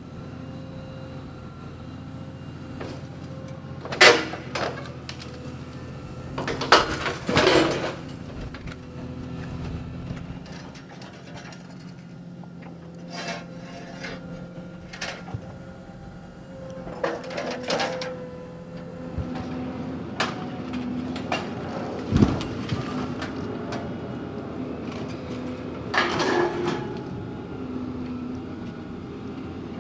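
Tracked excavator's diesel engine running steadily while its hydraulic demolition shear works on steel beams and rubble, giving sharp metallic bangs and scrapes every few seconds, the loudest about 4 and 7 seconds in.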